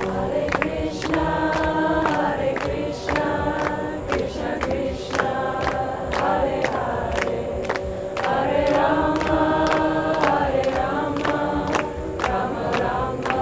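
A group of voices chanting a devotional song in harmony, in repeated sung phrases, over a steady beat of sharp percussive strikes.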